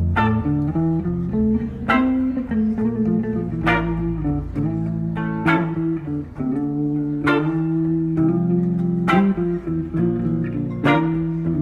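Instrumental music: guitar and bass playing a slow groove with a strong accent about every two seconds, before the vocals come in.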